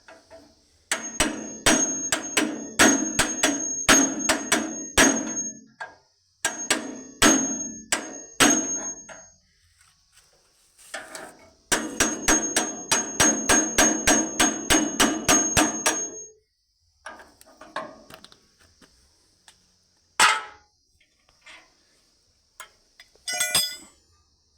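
A hammer striking metal in three runs of rapid blows, about three a second, each blow ringing. A few scattered knocks and a brief clatter of metal follow near the end.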